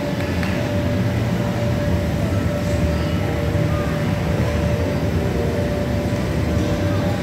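Steady low rumble of background noise in a large competition hall, with a constant faint hum.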